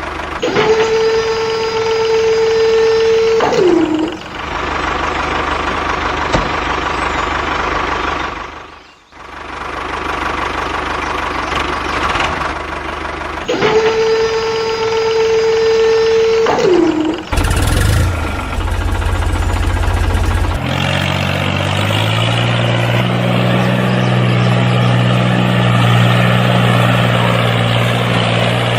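Small motorized machinery running, with a steady whine that winds down with a falling pitch, twice. A steady low engine hum follows near the end.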